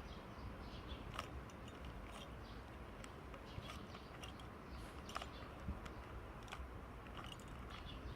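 Plastic Rubik's Cube being turned by hand, its layers giving irregular clicks and rattles.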